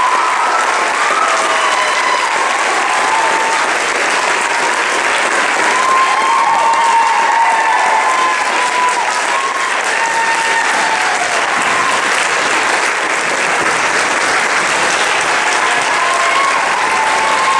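A theatre audience applauding, a dense, steady clapping, with a few voices whooping over it now and then.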